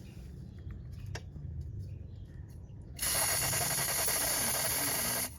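A WD-40 aerosol can sprayed in one steady hiss of a little over two seconds, starting about three seconds in and cutting off sharply, to lubricate a squeaking Fiat clutch cable. Faint light clicks come before it.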